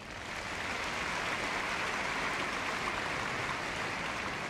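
Audience applauding: clapping swells right at the start and then holds steady.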